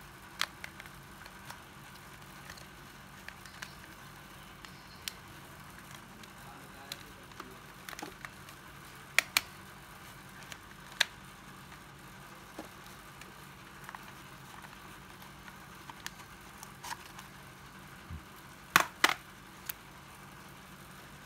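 Scattered clicks and knocks of a 12V cordless drill and its battery pack being handled, with no motor running. A few sharper clacks stand out, about nine, eleven and nineteen seconds in, the last a quick double.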